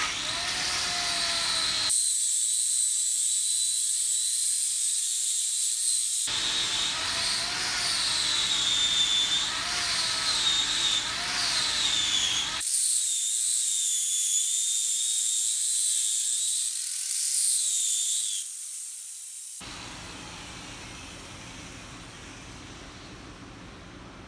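Stick-welding arc laying a root pass at about 100 amps on a cracked hydraulic cylinder end, a steady loud hiss with wavering high whistling tones. It stops about 18 seconds in, when the rod runs out.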